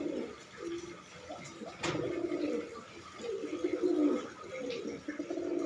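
Caged white pigeons cooing, a run of low, drawn-out coos repeated several times, with a single sharp click about two seconds in.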